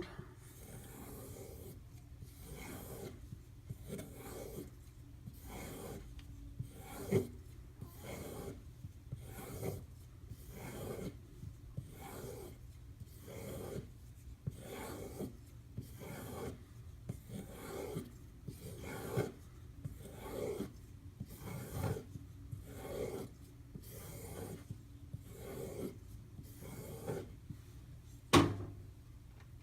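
Kershaw Crown knife blade, 8Cr13MoV steel, being stropped on a leather strop loaded with white compound: a steady run of soft rubbing strokes, a little over one a second. This is the final edge-refining stage after the 6000-grit stone. One sharp knock sounds near the end.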